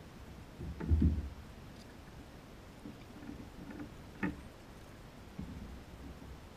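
Knocks and clunks on a plastic sit-on-top kayak as the paddle and gear are handled: a loud low thud about a second in, a sharp click a little after four seconds and a few softer knocks near the end.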